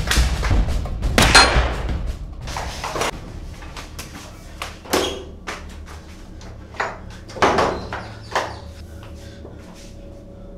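Film soundtrack: music dying away in the first two seconds, then several separate thumps and knocks a second or two apart, door-like bangs in a small room.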